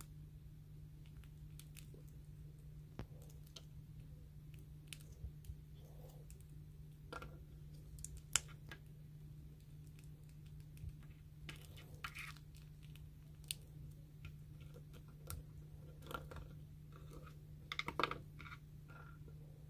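Small plastic clicks and taps from an SH Figuarts Satoru Gojo action figure as its head is worked back onto the neck joint, with a cluster of louder knocks about 18 seconds in as the figure is stood on the wooden table. A faint steady low hum runs underneath.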